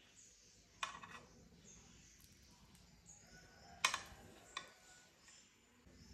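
A metal spoon knocking and scraping against a white serving pan while scooping rice: three sharp clinks, about a second in, just before four seconds (the loudest) and once more shortly after.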